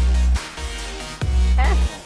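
Background electronic music with heavy bass notes that stop and start, and a brief vocal phrase near the end.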